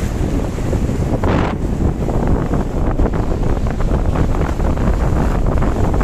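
Wind buffeting the microphone over small sea waves washing onto a pebbly shore, with a brief louder wash of surf about a second in.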